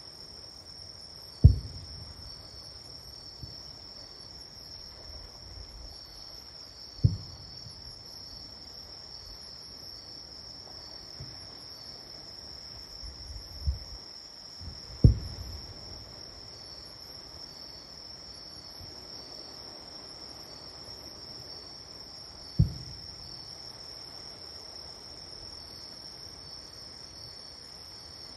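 Distant fireworks going off in dull, low booms, five over the stretch and several seconds apart. Under them insects trill steadily and high-pitched.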